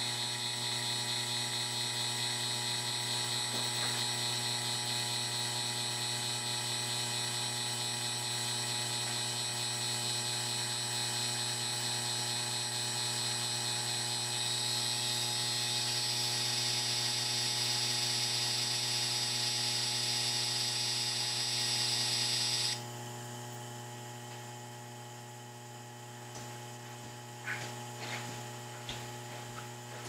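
Ikea induction cooktop element running with a loud high whine over a steady hum and several fixed tones, noise the owner blames on interference from a Mitsubishi heat pump. About three-quarters of the way through, with the heat pump switched off, the high whine stops suddenly, leaving a quieter steady hum.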